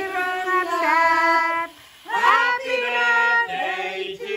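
A group of voices, women's and children's among them, singing a birthday song together in held notes, with a brief pause for breath about two seconds in.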